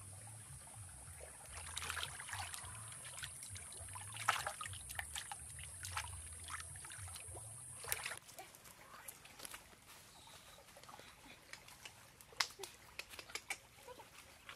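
Water splashing and sloshing as bamboo-skewered fish are swished about in a shallow muddy stream, over a steady high hiss. About eight seconds in, it cuts to a small stick campfire crackling, with scattered sharp pops.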